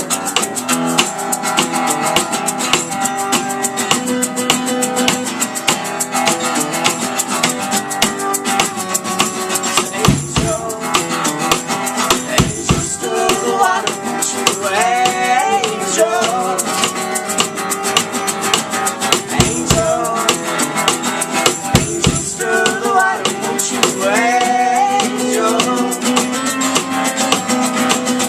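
Live band playing an instrumental break: guitar with a fast, steady shaker rhythm, and a wavering melodic line rising over it twice, about halfway through and near the end.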